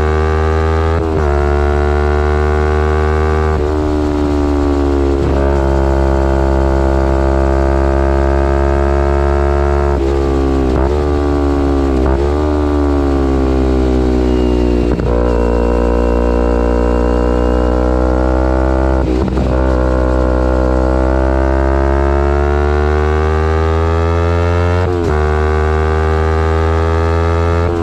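2011 Kawasaki Ninja 250R's parallel-twin engine through a full Graves race exhaust, running hard at speed. Its pitch climbs and sags with the throttle, and it is broken every few seconds by brief dips in the note as the gears change.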